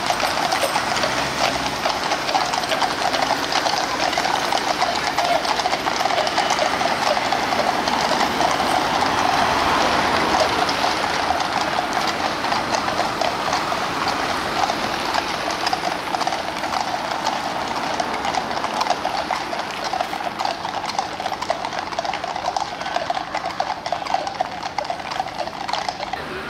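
Many overlapping hoofbeats of a mounted troop of Household Cavalry horses clip-clopping on a tarmac road. The clatter grows a little quieter over the second half as the horses move away.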